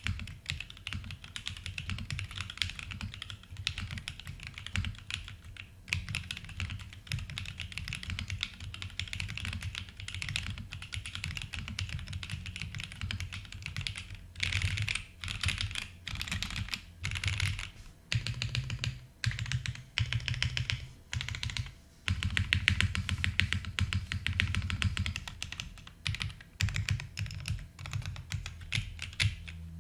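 Typing on a Monokei x TGR 910 v2 mechanical keyboard with lubed and filmed Banana Split linear switches on a polycarbonate plate: fast runs of keystrokes, broken in places into short bursts with brief pauses.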